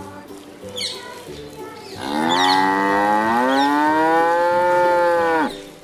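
A long-horned, droop-eared zebu cow mooing: one long call starting about two seconds in that rises in pitch, holds for about three seconds, then drops away.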